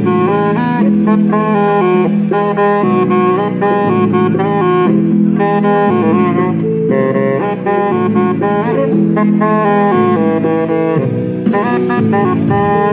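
Alto saxophone played live, a melody of many quick notes, over a backing track with sustained low bass notes underneath.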